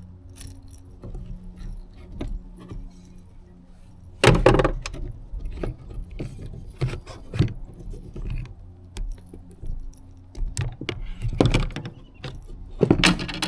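Handling noises in a plastic fishing kayak: light metallic jingling and rattling, with repeated knocks and bumps. The loudest knocks come about four seconds in, again about eleven seconds in, and near the end.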